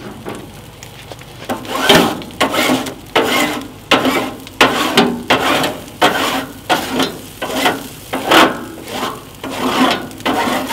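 Metal spatula scraping back and forth across a gas grill's flat griddle plate: a run of short, loud scrapes at about two strokes a second, starting about one and a half seconds in.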